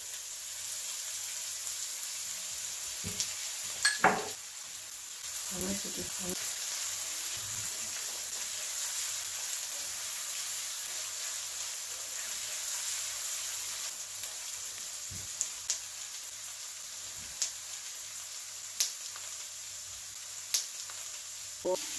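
Chopped garlic, onion and chili sizzling in oil in a wok as they are stirred with a spatula, which taps against the pan several times, mostly in the second half.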